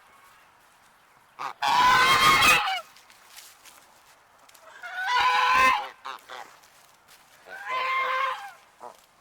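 An agitated Canada goose gives three drawn-out, harsh honks about three seconds apart, the first the loudest.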